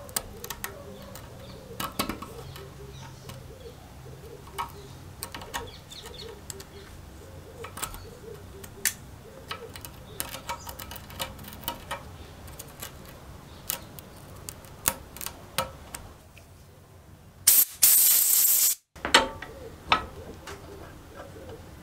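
Thin metal pick scratching and ticking against the carbon-caked electrode end of an old spark plug clamped in a steel vise, in short irregular scrapes. Near the end comes a loud hiss lasting about a second.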